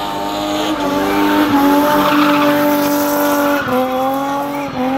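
BMW M20 straight-six engine held at high revs while the car spins, its tyres squealing. The engine note stays steady and dips slightly about three-quarters of the way through.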